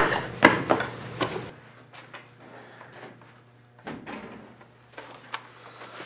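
A few scattered knocks and clunks, the loudest in the first second and a half; the background hiss drops away abruptly about a second and a half in.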